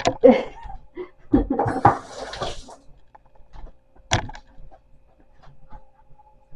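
Pots and utensils being handled: scattered knocks and clinks, a short rushing noise about two seconds in, and one sharp clink about four seconds in.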